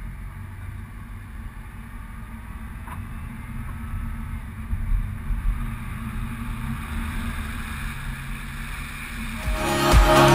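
Honda Civic driving: a steady low engine and road rumble that grows slowly louder. Music with a heavy beat comes in near the end.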